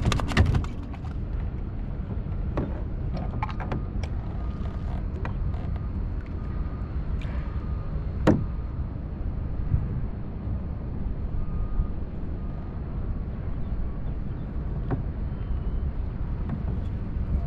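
Steady low rumble of wind on the microphone and water moving around a kayak, with scattered sharp clicks and knocks of fishing gear being handled on the deck, the loudest about eight seconds in.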